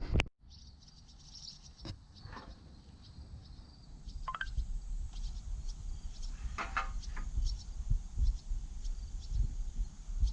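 Quiet outdoor background: faint bird chirps over a low rumble of wind on the microphone, with a few light clicks.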